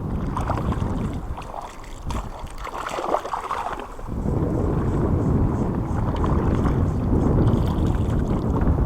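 Wind buffeting the microphone as a steady low rumble, which eases for a couple of seconds about two seconds in and then comes back.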